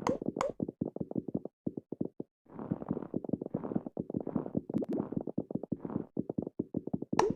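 Marbles rolling and clattering down a marble run track in a rapid, uneven stream of clicks and knocks, with a brief lull about two seconds in before the clatter picks up again.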